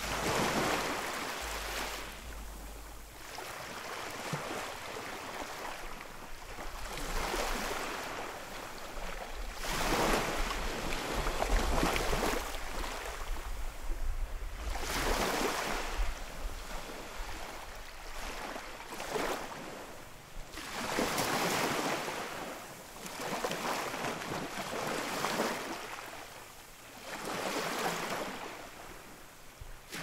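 Sea waves breaking and washing onto the shore, the surf swelling and falling away every few seconds.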